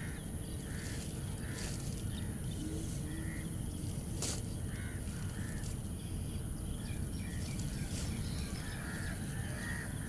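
Outdoor ambience: a steady low rumble with a few short bird calls, crow-like caws, scattered through, and one sharp click about four seconds in.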